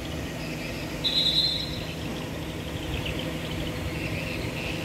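Steady low background hum, with a short high-pitched chirp a little after one second in.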